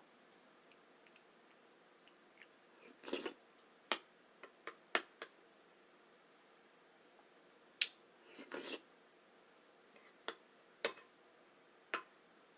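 Close-miked eating of oatmeal with fruit: a scatter of sharp clicks and two short slurping sounds, about five seconds apart, with quiet between.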